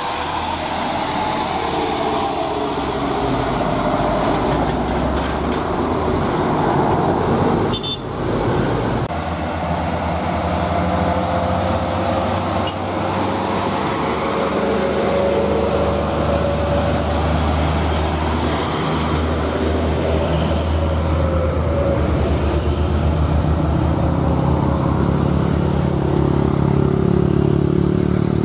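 Diesel trucks running past, a steady engine drone with an abrupt change about eight or nine seconds in.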